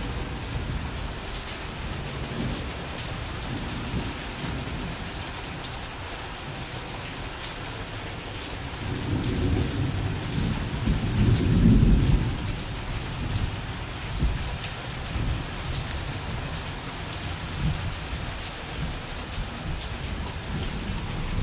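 Heavy rain pouring down steadily in a thunderstorm. A low roll of thunder rises about nine seconds in, is loudest around twelve seconds, then fades.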